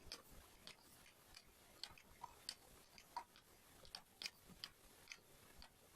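Diamond painting drills being pressed one by one onto the sticky canvas with an applicator pen: soft, sharp clicks at an uneven pace of about two to three a second.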